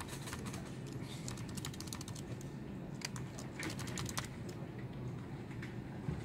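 Computer keyboard being typed on: quick runs of key clicks, densest in the first four seconds and sparser after, over a steady low hum.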